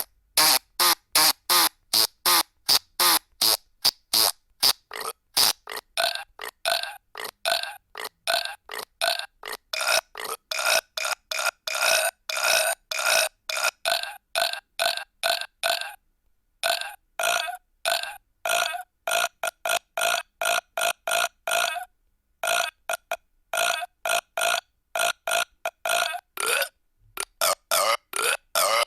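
Recorded burp sound effects from a soundboard app, played in quick succession: short loud burps at about two or three a second, with a few brief pauses.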